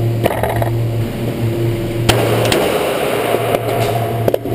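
Steady drone of an indoor shooting range's ventilation, broken by a few short, sharp clicks, the sharpest about two seconds in.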